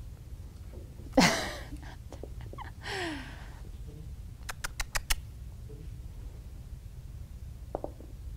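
A cat handling a training prop: a sharp clatter about a second in as the prop is knocked over, then scraping with short squeaks, and a quick run of five light taps around the middle.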